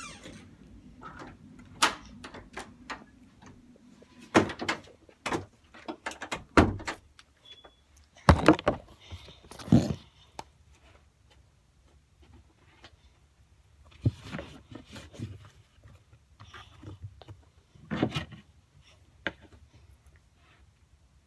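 Model Magic slime being handled and played with: irregular squishes, pops and small taps, with short pauses between them.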